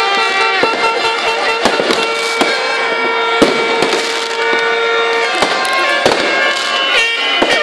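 Fireworks bursting and crackling overhead in quick, irregular bangs. Long steady tones at several pitches are held over the bangs, one of them lasting about three seconds in the middle.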